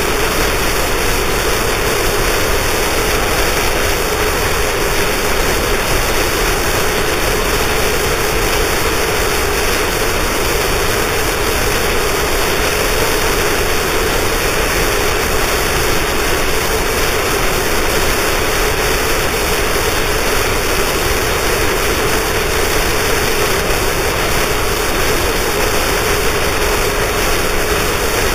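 Harsh noise wall music: a loud, dense, unchanging wall of distorted static, strongest in a narrow band in the lower middle.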